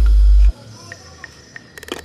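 Background music with a heavy bass that cuts out about half a second in, leaving a quiet break; a quick run of ticking percussion comes in near the end.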